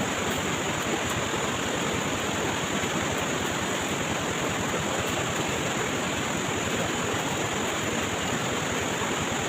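Steady rushing of flowing water, even and unbroken, with a constant high-pitched hiss over it.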